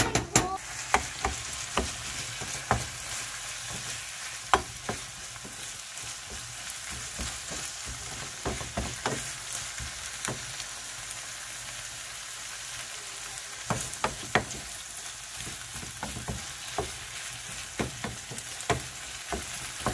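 Chicken and onions sizzling in a frying pan as coconut-garlic puree is fried in. A wooden spatula scrapes and knocks against the pan in irregular sharp strokes as the mixture is stirred.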